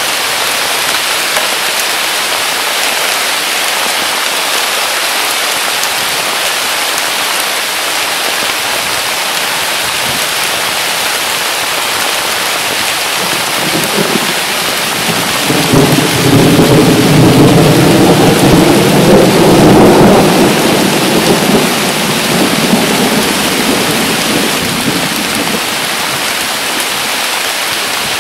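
Heavy rain pouring steadily onto willow foliage. About halfway through, a long peal of thunder rolls in, swells to its loudest over several seconds and dies away.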